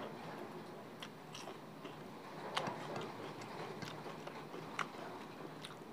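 A man chewing a mouthful of rice and spicy chicken-feet gravy close to the microphone, with scattered short wet clicks and smacks from the mouth.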